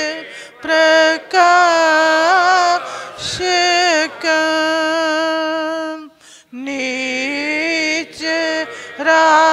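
Slow devotional hymn sung in Sanskrit, each word drawn out over long held notes, with a brief pause about six seconds in.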